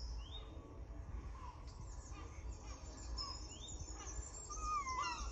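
Wild birds chirping and calling from a bird video played through laptop speakers: scattered short rising chirps, with a run of quick falling whistles near the end.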